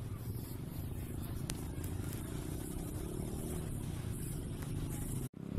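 Steady low rumble, with a sudden brief dropout near the end.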